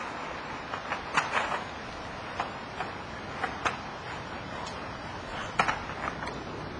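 RipStick caster board's wheels rolling on concrete as the rider weaves it side to side: a steady rolling noise with scattered sharp clicks.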